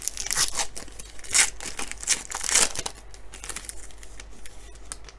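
Shiny foil wrapper of a trading card pack being torn open and crinkled by hand: dense crackling for about the first three seconds, then fainter rustling.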